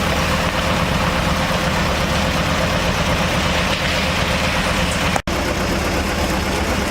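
Heavy engine of road-repair machinery idling steadily. All sound drops out briefly about five seconds in.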